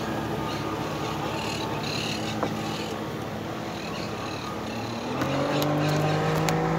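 Motorboat engine running steadily, then rising in pitch and growing louder about five seconds in.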